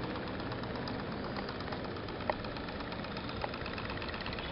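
Toy pop-pop steam boat's engine putt-putting steadily in a rapid run of small pops, with two sharper clicks in the middle.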